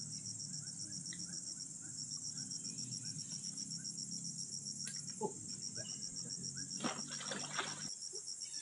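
Insects trilling steadily in a fast, even pulse, with a brief pause about two seconds in. Water splashing and sloshing near the end as men wade in the pond handling a net.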